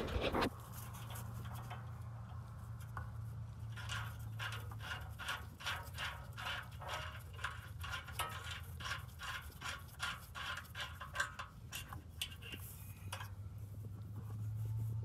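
Exhaust gas temperature sensor being loosened and unscrewed from its exhaust-pipe bung with a 13 mm wrench: a run of light clicks and scrapes, about two or three a second, from about four seconds in until near the end, over a low steady hum. A brief clatter at the very start.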